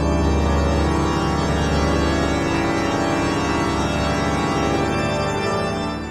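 Organ music playing full, sustained chords.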